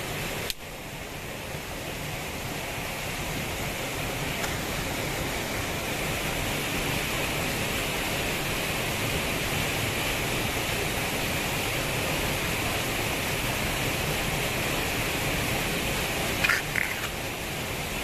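Steady rushing background hiss, like flowing water, that dips briefly about half a second in and then holds even. A few short sharp clicks come near the end.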